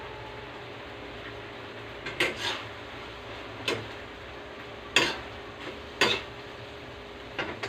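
Metal slotted spatula clanking and scraping against a metal frying pan while stir-frying, about six sharp strikes starting about two seconds in, over a steady low hiss.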